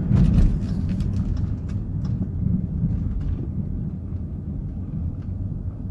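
Dodge R/T's V8 engine running under way in sport mode, a deep exhaust rumble that is loudest in the first half second and then gradually eases off.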